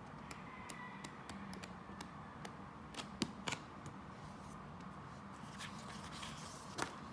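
Hands handling a CD album and its photo book: scattered light clicks and taps, two sharper knocks about three seconds in and another near the end, with a short rustle of paper just before it.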